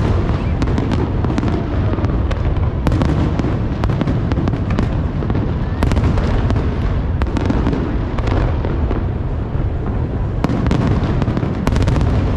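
Large fireworks display: a continuous low rumble of shell bursts, with many sharp cracks and crackles scattered through it, coming in quick clusters.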